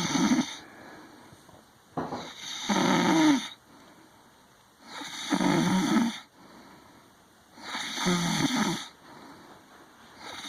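A sleeping woman snoring in a steady rhythm: a snore about every two and a half to three seconds, each lasting about a second, with quieter breathing between them.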